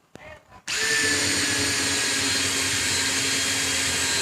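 Cordless drill starting abruptly under half a second in and running steadily at full speed, driving a swaging bit into the end of a refrigerant pipe to widen it.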